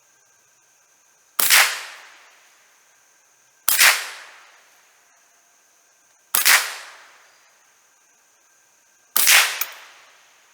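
Savage Model 64 semi-automatic .22 LR rifle firing four single shots, spaced about two and a half seconds apart, each with a short echoing tail. A steady high insect drone runs underneath.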